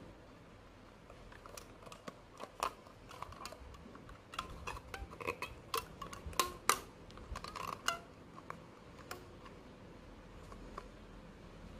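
Light clicks and taps of hard plastic being handled: a plastic food container and two sticks knocked and shifted while rubber bands are stretched around them. The taps are scattered and come thickest through the middle.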